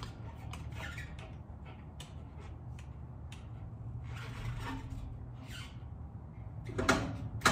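Squeaks, scrapes and clicks of a mountain bike being handled and seated in a 1UP bike tray on a van's rear carrier, with two sharp knocks near the end, the second the loudest.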